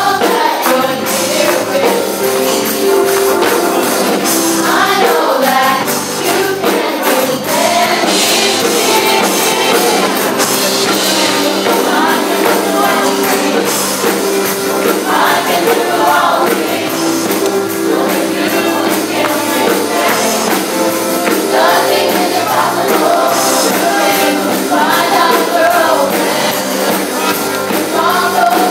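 Live gospel praise music: voices singing with keyboards, organ and a drum kit playing continuously.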